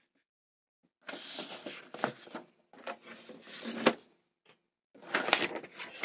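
Handling noise from the recording phone being picked up and moved: three short bouts of rubbing and rustling with knocks, the sharpest knock just before four seconds in.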